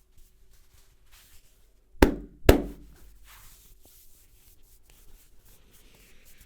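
Two sharp hand strikes on the head during a barber's head massage, about half a second apart, each with a short low ringing tail. Faint rubbing and rustling of hands on hair and skin come before and after.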